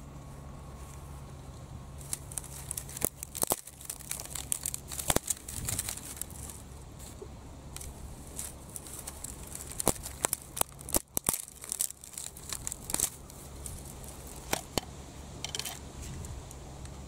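Dry bamboo twigs crackling and snapping as gloved hands gather and break them up for kindling: sharp, irregular cracks starting about two seconds in, coming in two busy spells.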